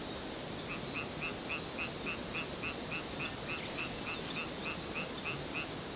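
A frog calling: an even series of short croaks, about three or four a second, starting just under a second in and stopping shortly before the end, over a steady hiss.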